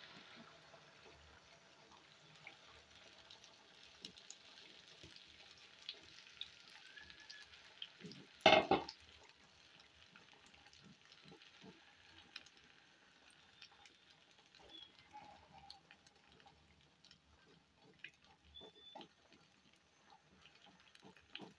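Beaten eggs frying in an oiled non-stick pan, sizzling faintly with small scattered pops and crackles. The sizzle is loudest just after the pour and fades over the first second. A brief loud clatter comes about eight seconds in.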